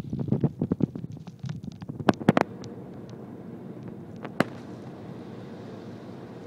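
A quick run of clicks and knocks from the camera phone being handled and turned, then steady road and engine noise inside a moving car's cabin, with one sharp tick about four and a half seconds in.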